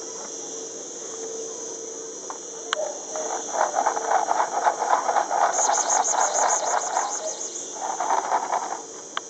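Steady high chirring of insects. A louder rapid rasping burst runs for about four seconds from around three seconds in, and a shorter one follows near the end.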